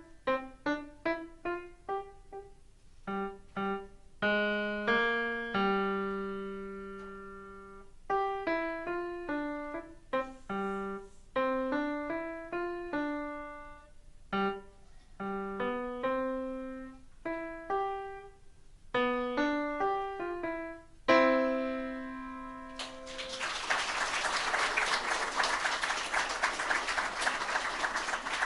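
Solo piano playing a piece of short, detached notes, ending on a held chord about 21 seconds in; a couple of seconds later audience applause starts and continues.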